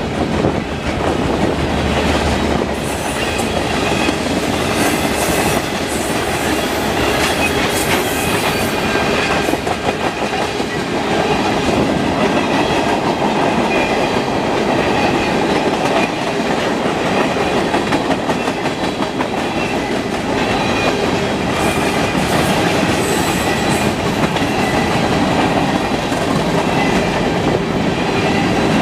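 Freight train cars rolling steadily past on jointed track, wheels clicking over the rail joints under a continuous rumble, with faint, intermittent high wheel squeal.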